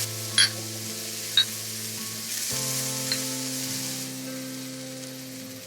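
Beef (chimasal) sizzling as it cooks, a steady hiss, with two sharp clicks about half a second and a second and a half in. Background music plays underneath.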